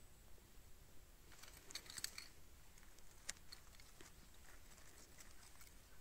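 Near silence, broken by a few faint crackles about a second and a half in and one sharp click about three seconds in, as a moss bolete is split with a pocket knife and handled.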